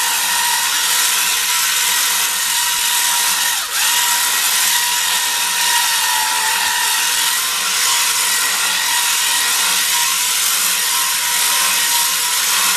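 Motor of a power-driven pipe puller running steadily with a high whine, drawing the well's drop pipe up out of the well; the sound dips briefly about four seconds in.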